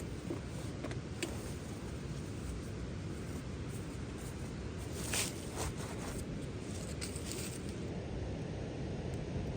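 Wood campfire burning, with a few scattered crackles and pops over a steady low rush.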